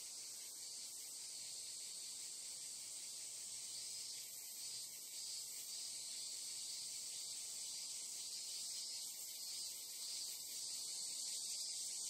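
Dense chorus of insects, crickets and cicadas, giving a continuous high-pitched shrill buzz that swells slightly now and then and grows a little louder toward the end.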